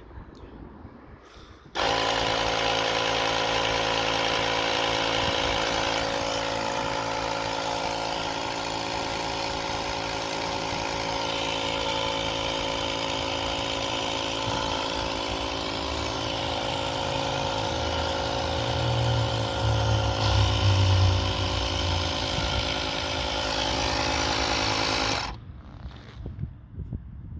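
Ryobi cordless air inflator running steadily for about 23 seconds, switching on suddenly about two seconds in and cutting off near the end. A deeper low hum swells about two-thirds of the way through.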